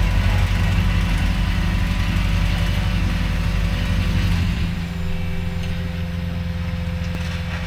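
CAT 289D3 compact track loader's diesel engine running steadily while rolling with the CAT CV119 vibratory roller attachment; the heavy low rumble eases about four and a half seconds in.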